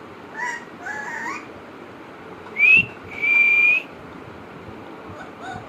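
Alexandrine parrot giving two short gliding chirps, then a rising whistle and a held steady whistle a little over three seconds in, the loudest sound, with a faint chirp near the end.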